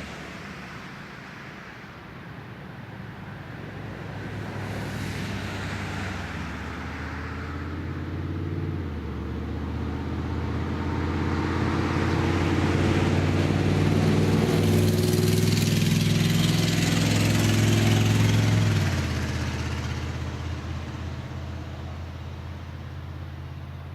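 Road traffic passing: a low engine hum and tyre noise build to a peak a little past the middle, then fade away.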